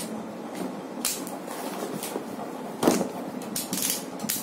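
Cardboard laptop box being handled and turned over on a tabletop: brief scrapes and rustles, with one heavier thump about three seconds in.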